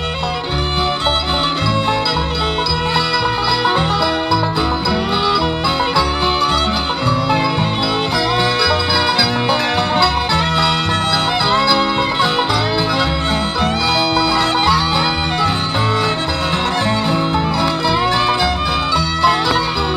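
Acoustic string band playing an instrumental bluegrass-style tune: fiddle and banjo over guitar, with a bass line keeping a steady beat.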